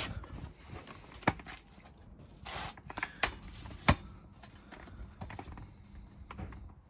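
Handling noises from work on the engine: a few sharp clicks and knocks, the loudest about a second in and again near four seconds, with a brief rustle between them.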